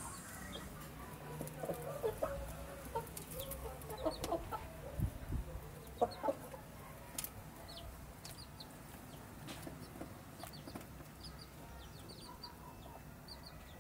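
Chickens clucking softly while they feed, the clucks mostly in the first half, with a few sharp clicks in between.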